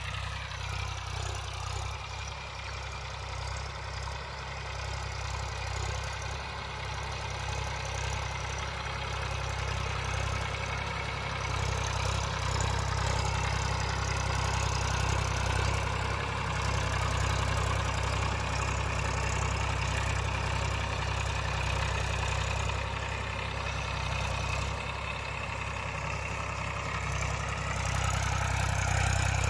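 Massey Ferguson tractor's diesel engine running steadily, working a plough; it grows louder about eleven seconds in and again near the end.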